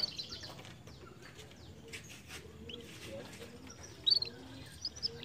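Canary chirping with short, sharp notes: one at the start, a loud pair about four seconds in, and a few more near the end, over faint low background twittering.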